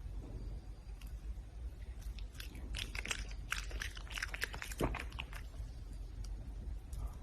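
Red panda chewing and crunching food: irregular crisp bites and crunches, coming thickest in the middle.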